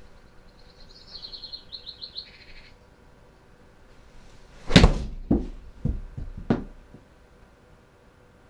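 Full-swing 60-degree wedge shot in a golf simulator: one loud, sharp strike of the club on the ball and the ball into the impact screen, followed by about three quieter knocks over the next two seconds. About a second in, a quick run of high chirps.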